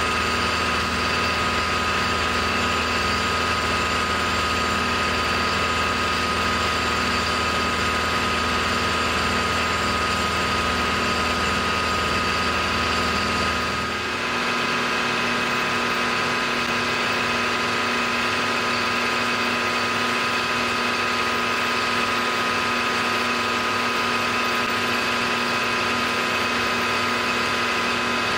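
Milling machine running steadily, its end mill cutting a recess into an aluminium block. Its fixed whine holds several steady tones. About halfway through, the deep hum drops away after a brief dip, and the machining sound carries on.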